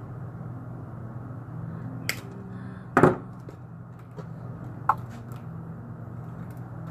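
A few short sharp clicks of pliers working stranded picture wire at a metal hanger, the loudest about three seconds in, over a steady low hum.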